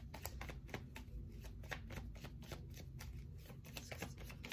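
Deck of cards being shuffled by hand: a dense run of faint clicks.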